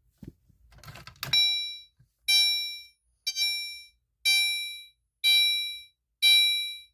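Fire alarm chime notification appliance sounding a repeating chime, about one sharp strike a second, each ringing and fading, six strikes in all starting about a second in. A few faint clicks come before the first strike.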